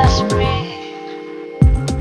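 Electronic dance music with a heavy kick drum about twice a second over sustained synth tones. The drums and bass cut out for about a second midway, then come back in with a loud hit near the end.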